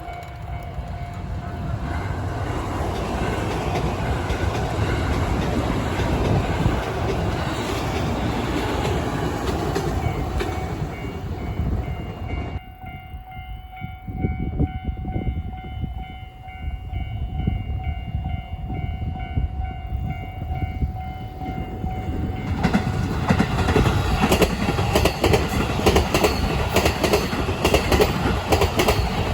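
Trains passing a Japanese railway level crossing while the crossing's warning bell rings steadily. A first train passes, the rail noise drops away about halfway through and leaves the bell ringing on its own for about ten seconds, then a second train arrives with a regular clatter of wheels over rail joints.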